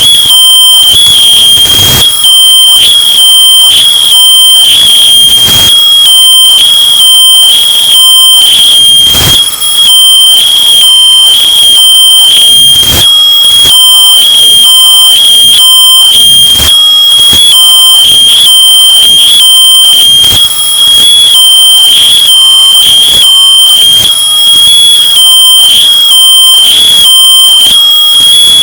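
Smoke detector alarm sounding a continuous high-pitched shriek, bass-boosted and distorted so that it is very loud and clipped, with a harsh noisy rasp pulsing rapidly under the tone.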